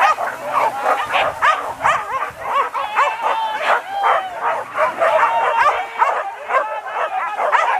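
A pack of boar-hunting dogs yelping and barking in chorus as they run, many high yips overlapping without a break.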